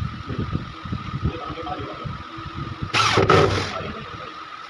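Handheld electric drill run briefly, two quick whirring bursts about three seconds in, over a steady low mechanical rumble.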